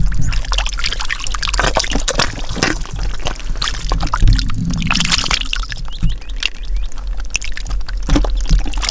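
Hands sloshing and splashing through shallow muddy water and wet mud, a continual run of irregular wet splashes and squelches as the mud is groped through by hand.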